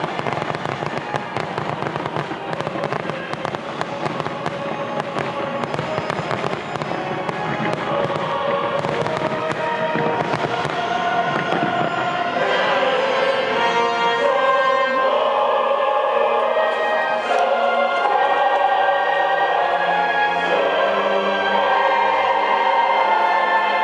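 Fireworks crackling and popping densely over music with singing; about halfway through the crackle thins out and the music takes over.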